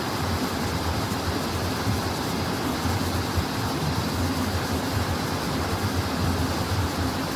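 Mountain stream water flowing over rocks: a steady rushing with a low rumble underneath.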